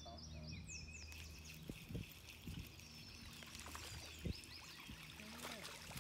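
A hooked crappie splashing and thrashing at the lake surface as it is reeled in toward the boat: light water splashes and sloshing, with a few soft thumps. Birds chirp faintly and a low steady hum runs underneath.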